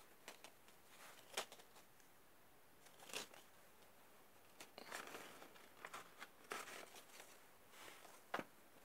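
Faint handling noise of a model-kit packet and its sheets: scattered rustles, crinkles and a few sharp taps as the packet is turned over and the sheets are pulled out.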